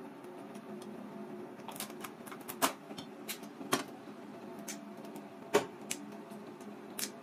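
Irregular sharp clicks and cracks of crab leg shell being worked with a small metal pick to get the meat out, with a few louder cracks among them, over a steady low hum.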